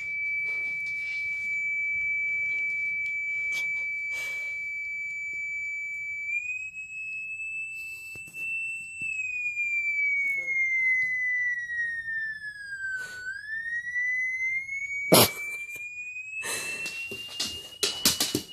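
A continuous high-pitched tone, held steady for about six seconds, stepping up slightly, then gliding slowly down and back up again without a break. About fifteen seconds in there is one loud sharp knock, and near the end bursts of scuffling noise as the two huskies get up and tussle.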